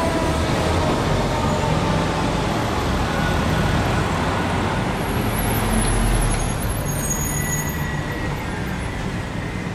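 Street traffic with a heavy truck's engine rumbling past close by, loudest around the middle. A siren winds down and fades out in the first couple of seconds.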